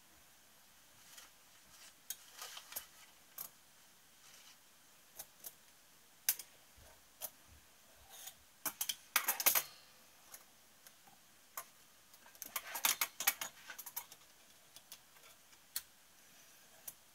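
Scattered light metallic clicks and clinks from hands handling a piston and its ring tool, bunched about nine seconds in and again from about twelve to fourteen seconds.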